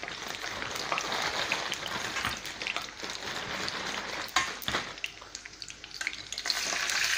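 Potato chips deep-frying in vegetable oil in a pan: a steady crackling sizzle with many small pops, and one sharp knock a little over four seconds in. Near the end the sizzle grows louder as more raw chips go into the hot oil.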